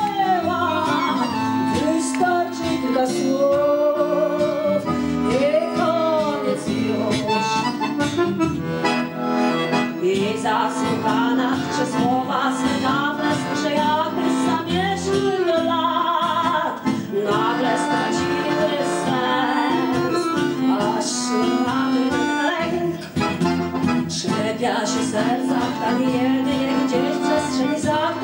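A tango played live on accordion, with chords and melody held throughout. A woman sings over it with a wavering vibrato, her voice strongest in the first few seconds.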